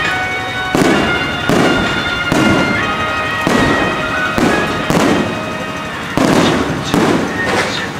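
Aerial firework shells bursting overhead in quick succession, about nine sharp booms each trailing off.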